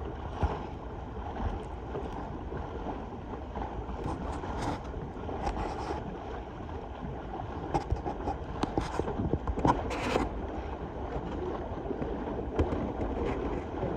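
Wind rumbling on the microphone and water washing past a sailboat under way on choppy water, with a few short, louder sounds between about four and ten seconds in.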